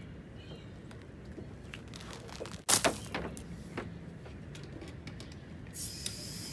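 Handling noises on a wooden deck: one sharp clunk a little under three seconds in, with a few lighter knocks around it. A steady high hiss starts near the end.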